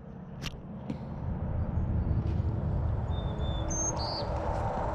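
Outdoor background: a low, steady rumbling noise that rises in the first second, with a few faint short bird chirps in the second half.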